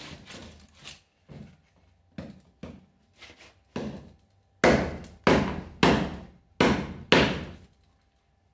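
A large bushcraft knife chopping into a tree branch: a run of lighter chops, then five heavy chops in quick succession in the second half, each a sharp knock that dies away quickly.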